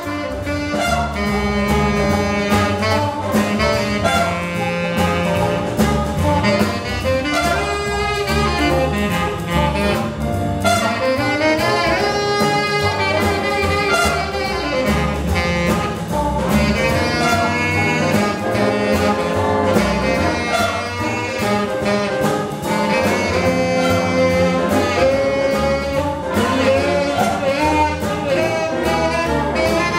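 Tenor saxophone solo over a jazz big band, with trumpets, piano and drums accompanying in a steady swing.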